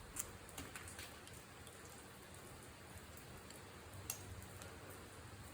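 A few faint, sharp clicks of small metal handling as a spark plug's gap is worked and checked with a gap gauge, over a quiet steady hiss; the clearest click comes about four seconds in.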